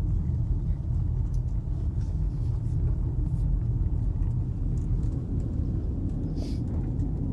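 Steady low rumble of a car driving, the road and engine noise heard from inside the moving car.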